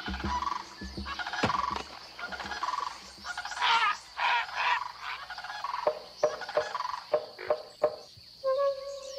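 Swamp chorus of frogs and birds: deep, repeated grunting calls in the first couple of seconds, then bird calls and a run of sharp clicks. A steady held tone comes in near the end.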